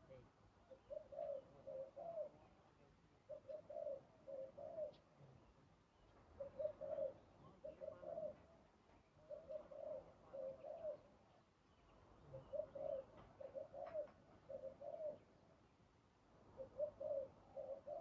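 Spotted dove cooing: short phrases of several coos each, repeated every two to three seconds.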